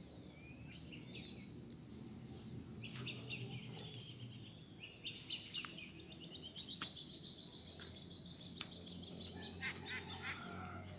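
A steady, high-pitched drone of insects, with birds calling and chirping over it. A long run of quick repeated bird notes comes in the middle, and a few soft clicks are heard.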